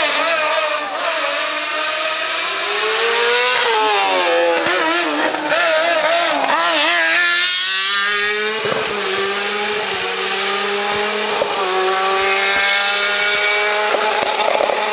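Race car engine at full throttle on a hill-climb course, its pitch rising and wavering through the gears, dropping sharply about eight seconds in as it goes by, then a steadier note that slowly rises as it pulls away up the hill.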